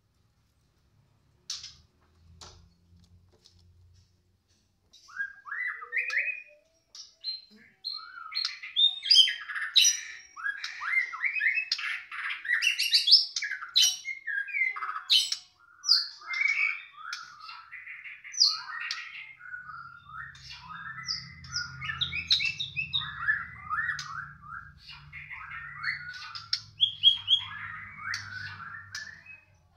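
Caged white-rumped shama (murai batu) singing just after its cage cover is opened: a long, fast, varied 'balak' song of whistles and chattering phrases strung together without pause. It starts about five seconds in, after a few faint clicks.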